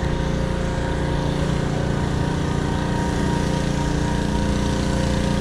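Steady mechanical drone of a running motor or machine, a constant low hum with several held tones over a rushing noise.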